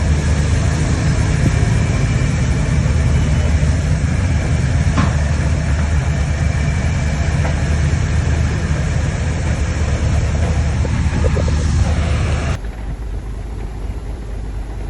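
Heavy diesel engine of a crawler bulldozer running steadily under load with a deep, even rumble. Near the end it cuts abruptly to a quieter, more distant engine sound.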